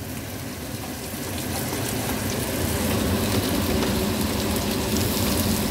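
Chopped tomatoes and fried onions sizzling in hot oil in a frying pan as they are stirred with a wooden spoon. The sizzle is steady and swells somewhat over the first couple of seconds.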